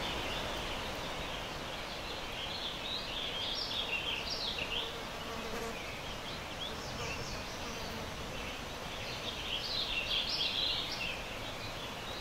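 Daytime forest ambience recording: many birds chirping over a steady rush of wind through trees, with a fly buzzing past very close to the microphone.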